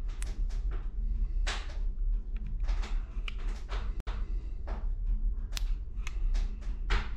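Handling noise: short irregular rustles and scrapes, about one or two a second, over a low steady electrical hum. There is a sharp click with a brief dropout about four seconds in.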